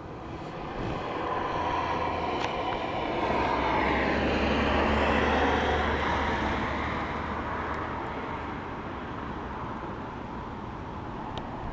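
Airplane passing overhead: its engine noise swells slowly to a peak about five seconds in, drops in pitch as it goes by, and fades away.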